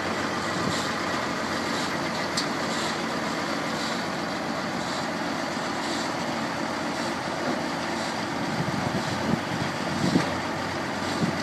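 A Maxigrind 425 horizontal grinder runs steadily on its 425 hp CAT 3406 diesel while yard waste of grass, leaves and branches is fed in. A few short knocks and clatters come near the end.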